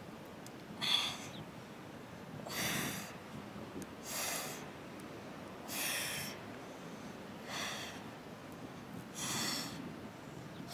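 A woman's sharp breath exhales, one with each crunch as she curls up, six in all, evenly spaced about every second and a half to two seconds.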